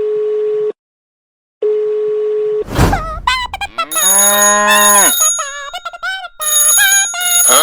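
Edited sound effects: two long, steady beeps with a gap of silence between them, a short whoosh about three seconds in, then a string of loud, cartoonish sounds that bend up and down in pitch.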